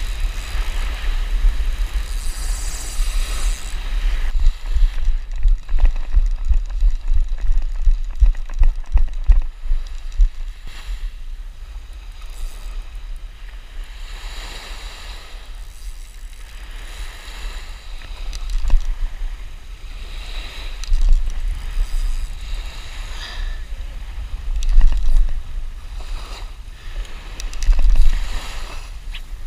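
Wind buffeting the microphone in gusts, with small waves breaking and washing up the sand every few seconds.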